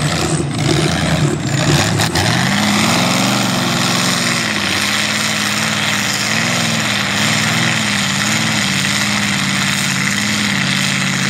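Mega truck's engine working under load through deep mud, its pitch rising and falling in repeated waves as the throttle is worked. A steady hiss runs under it, and a few sharp knocks sound in the first couple of seconds.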